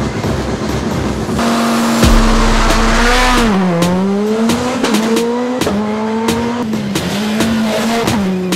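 Škoda Fabia S2000 rally car's four-cylinder engine at high revs, cutting in about a second and a half in. Its note sags and climbs back several times. Background music with a beat runs underneath.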